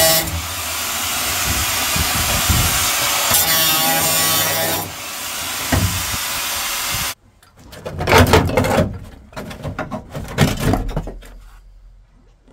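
Angle grinder running against the sheet-steel cargo floor pan, grinding through spot welds, with the pitch rising and falling as the disc bites. It cuts off abruptly about seven seconds in and is followed by a few irregular bursts of noise that fade away.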